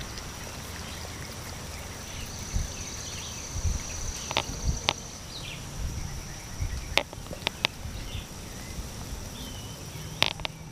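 A steady, high-pitched insect trill runs throughout. Under it sits a low rumble, with a few sharp clicks scattered through.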